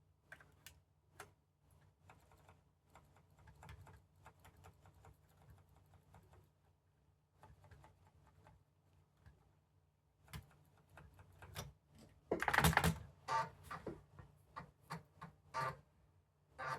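Keys being pressed on an Amiga 1000 computer keyboard: scattered taps, a louder quick clatter about twelve seconds in, then steady taps about twice a second.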